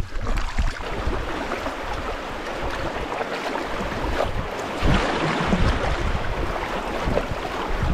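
Steady rush of river water, with wind buffeting the microphone in irregular low rumbles.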